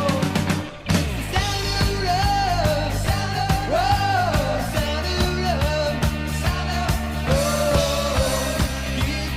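Rock music: a band with a steady drum beat and bass under a gliding lead melody. It drops out briefly just before a second in, then comes straight back in.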